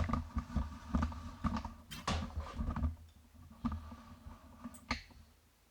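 Irregular clicks, knocks and rattles of a rice cooker's inner pot being handled while rice is washed, with sharper knocks at the start, about two seconds in and near the end. The sounds thin out in the last seconds.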